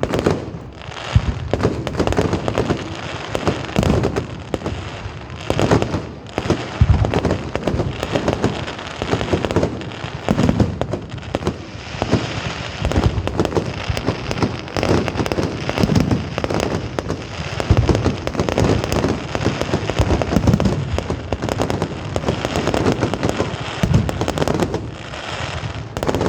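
Fireworks going off in rapid succession: many sharp bangs overlapping with crackling, a dense continuous barrage with hardly a pause.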